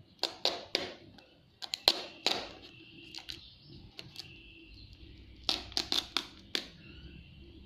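Sharp clicks and taps in three short clusters, from hands handling the phone's cardboard box and packaging during unboxing.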